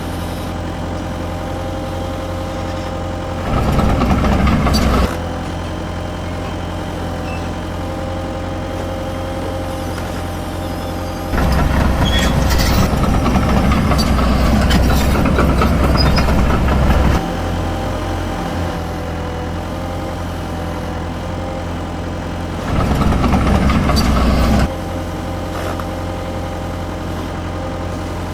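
Huina radio-controlled toy excavator running: a steady engine-like hum, broken three times by louder stretches of electric motor and gear noise as the machine is worked, the longest lasting about six seconds in the middle.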